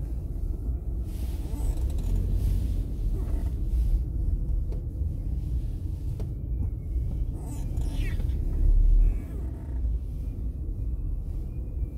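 Steady low rumble of a car driving on the road, tyre and engine noise, with a brief louder deep rumble about nine seconds in.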